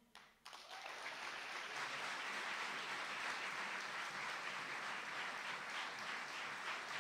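Audience applauding: after a moment of near quiet, clapping starts about half a second in and quickly settles into steady applause.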